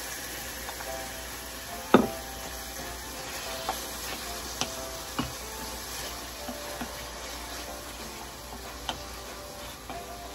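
Sliced pork sizzling in hot oil with onion and garlic in a stainless steel pan while a wooden spoon stirs it. The spoon knocks sharply against the pan about two seconds in, then lightly a few more times.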